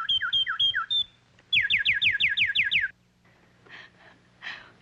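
Whistled bird calls: a run of short, downward-sweeping whistled notes, then, after a brief pause, a rapid trill of about eight falling notes, six or so a second, that sounds like a bird answering the call.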